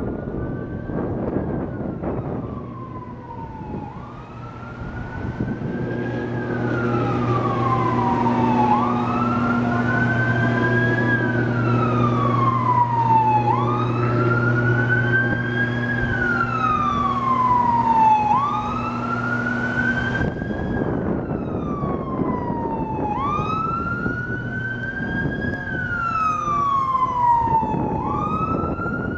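Fire truck siren wailing, each cycle sweeping up quickly and falling slowly, about every four to five seconds, and getting louder after the first few seconds. A steady low hum sits beneath it through the middle.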